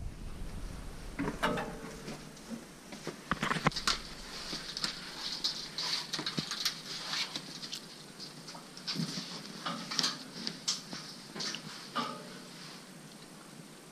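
Irregular footsteps with scattered small knocks and rustles of someone walking in through a doorway and along a hallway.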